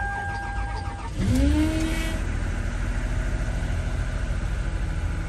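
Lexus RX350's 3.5-litre V6 cold-started at −18 °C after sitting eight days. The starter cranks briefly under a steady high tone, and the engine catches about a second in, flares up in revs and settles into a steady fast idle.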